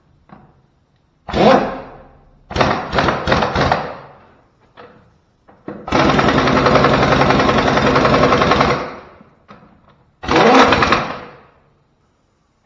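Air impact wrench hammering lug nuts onto a truck's front wheel: a short burst, then a few quick stabs, a long run of nearly three seconds in the middle, and a last burst near the end.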